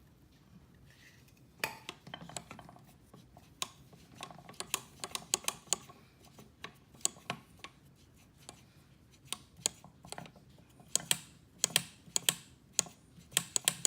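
Sharp, irregular clicks and clacks of a C6 Corvette accelerator pedal being worked by hand and snapping back on its return spring, tested after WD-40 on its stiff pivot.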